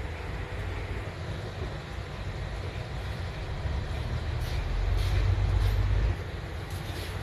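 Double-decker bus running, heard from inside on the upper deck: a steady low engine and road rumble that grows louder for about a second and a half after the middle, then drops back suddenly.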